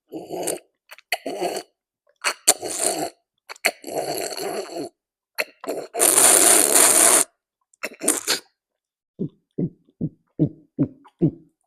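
Close-miked drinking of water: several short bursts of handling and sloshing, then a loud rushing noise lasting about a second, then a run of about six quick gulping swallows near the end.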